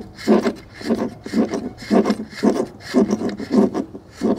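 Antenna coax connector being twisted by hand onto the antenna socket of an SWR meter, a rhythmic rasping of about three strokes a second as the threaded coupling nut is turned.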